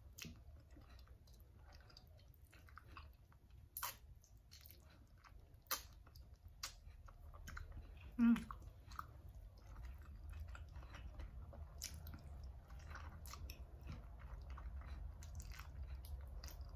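Close-up chewing and biting of chicken feet cooked in coconut milk, eaten by hand, with scattered wet smacks and small clicks. About eight seconds in there is one brief, louder sound that slides down in pitch.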